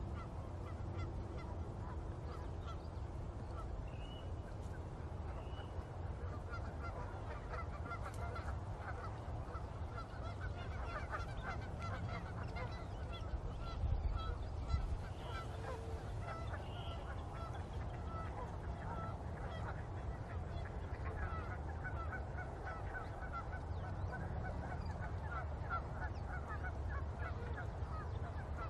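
Many birds calling at once, a dense and continuous chatter of short honking calls over a steady low rumble, with a brief louder low bump about halfway through.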